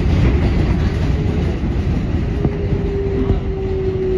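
R188 subway train running on elevated track, heard from inside the front cab: a steady heavy rumble of wheels on rail with a few clacks. About two seconds in, a thin whine comes up and slides slowly down in pitch.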